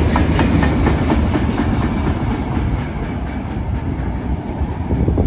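CSX mixed freight train's last boxcar rolling past, its wheels clicking on the track over a heavy rumble. The clicking thins out and the rumble fades as the end of the train moves away.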